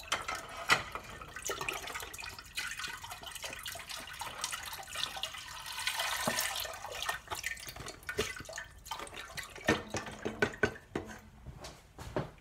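Chicken broth poured from a carton into an empty stainless steel stock pot: a steady splashing pour. A few sharp knocks and taps come near the end.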